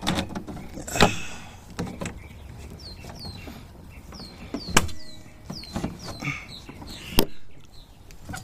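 Sharp knocks and clunks of mounting hardware being handled and fitted, the loudest about a second in, near five seconds and near seven seconds. In the middle, a small bird chirps a quick run of short falling notes.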